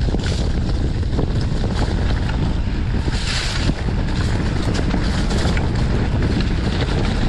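Wind rushing over the microphone with a steady low rumble and frequent small clicks and knocks, as a mountain bike rides fast down a rough dirt singletrack. A brief hiss comes about three seconds in.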